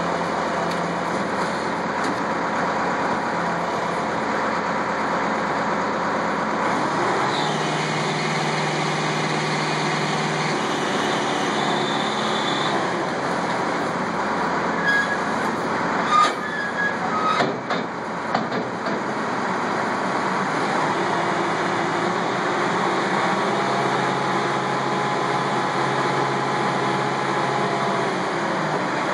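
Diesel engine of a Lull telehandler running steadily, changing pitch a couple of times as the boom works the forks down onto cardboard in a steel dumpster. A few sharp knocks and clatters come about halfway through as the load is pressed.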